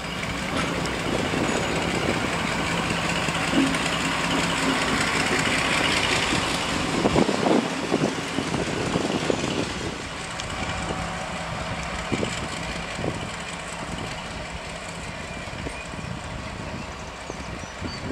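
Warship-class diesel-hydraulic locomotive's engines running steadily as it moves slowly light engine. There is a run of clanks about seven to ten seconds in, and the engine sound is quieter after that.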